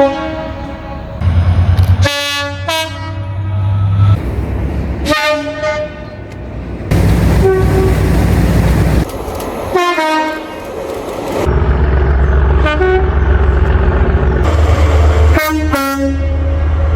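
British trains sounding their horns as they pass, several blasts from different trains, some falling in pitch as the train goes by at speed. A heavy rumble of the passing trains runs beneath.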